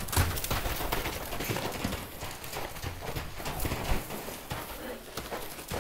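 A horse's hooves striking the ground as she moves about, a run of irregular footfalls.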